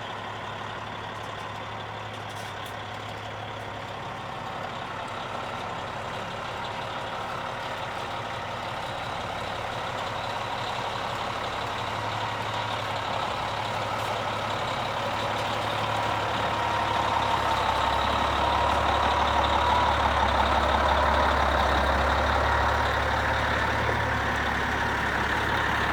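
Heavy diesel vehicle engine running steadily, growing louder over the second half as it comes closer or works harder.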